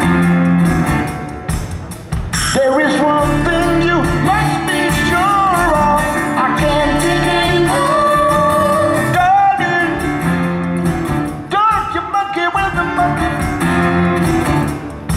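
Live band playing, with a wordless sung vocal line sliding and wavering over the instruments for most of the stretch.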